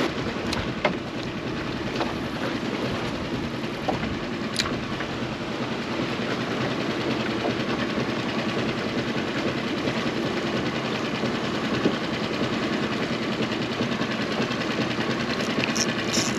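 Steady rushing background noise on a small boat at sea, with a few faint clicks about one and four and a half seconds in.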